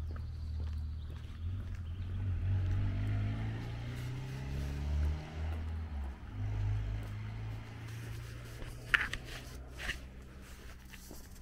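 A motor vehicle's engine running close by, its pitch rising and then falling over a few seconds as it speeds up and eases off. Two sharp footsteps on the paved lane come near the end.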